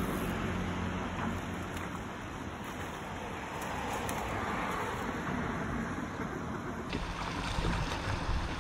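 Steady rush of flowing river water, with a few light splashes from a hooked catfish thrashing at the surface near the bank.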